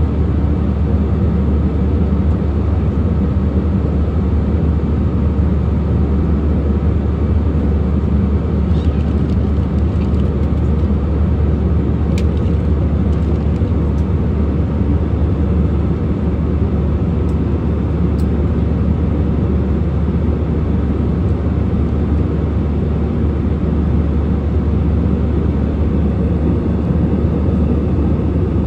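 Steady drone of engines and rushing air inside an airliner cabin in flight, with a couple of faint clicks around the middle.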